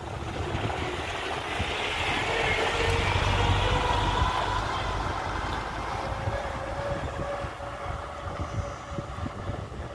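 A heavy diesel vehicle engine drones, growing louder over the first few seconds and then slowly fading, with a faint steady whine running through it.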